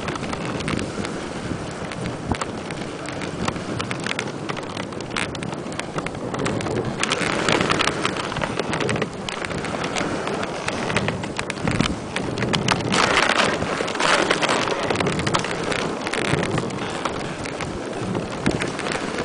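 Dog sled running over snow behind a husky team: a continuous scraping rush of the runners on the snow, with frequent knocks and rattles from the sled, and wind on the microphone.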